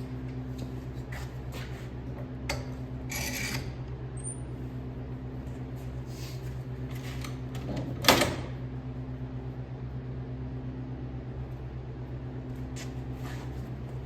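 Steady low machine hum with scattered clicks, and a sharp knock about eight seconds in.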